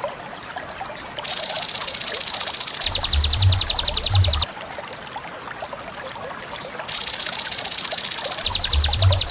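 Masteran recording of sogon and konin calls: rapid, high-pitched pulsed buzzing calls, two back to back starting about a second in and again near seven seconds, the second of each pair over low thumping pulses. In between, a quieter hissing background.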